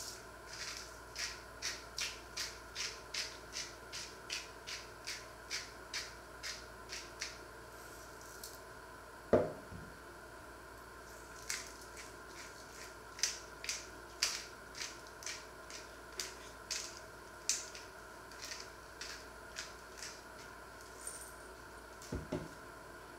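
Small hand-held spice mill twisted over the meat, giving short rasping grinds at about two or three a second in two runs with a pause between. A single knock sounds between the runs, and a lighter one near the end.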